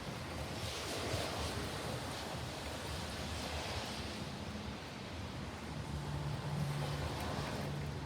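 Strong wind blowing in gusts that swell and fade.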